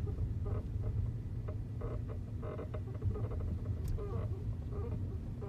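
Front suspension of an Audi A8 (D4) creaking while the car is driven: short, irregular squeaks over a low road rumble, like a poorly made bed creaking. The noise comes from a worn left front upper control arm ball joint with a lot of play.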